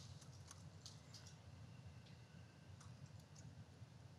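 Faint, irregular clicking of keys as a question is typed on a low-profile computer keyboard, over a low steady room hum.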